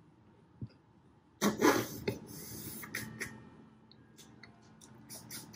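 Eating seafood boil by hand: a loud slurp about one and a half seconds in, then quieter wet mouth sounds with scattered lip smacks and clicks.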